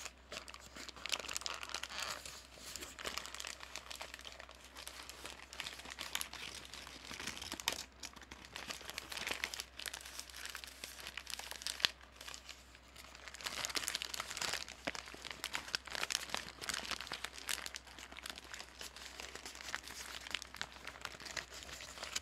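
Paper bag being crinkled and crumpled by hand: a dense, uneven run of crackles, louder for a stretch a little past the middle.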